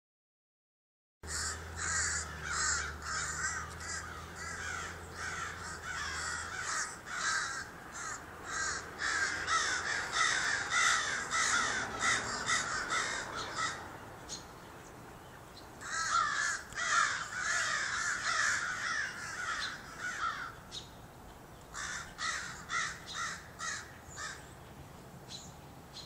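A flock of crows cawing together in a dense, overlapping racket, with two short lulls partway through.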